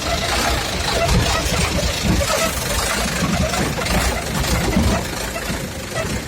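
Mitsubishi Canter truck engine running, a steady rumble.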